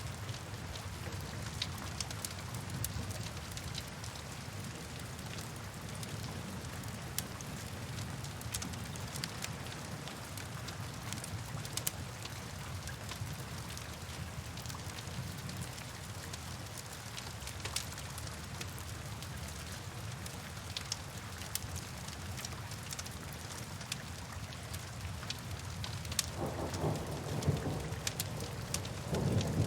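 Steady rain, an even hiss full of scattered drop ticks over a low rumble. A louder roll of thunder swells about 26 seconds in and again near the end.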